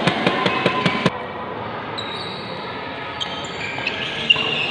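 Badminton played on an indoor court: a quick run of light clicks in the first second, then sports shoes squeaking on the court floor, and one sharp racket-on-shuttlecock hit a little past four seconds in.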